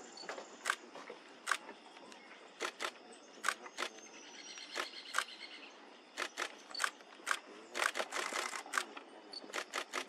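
Camera shutters clicking at irregular intervals, single shots mixed with quick bursts of several clicks, the bursts bunched toward the end.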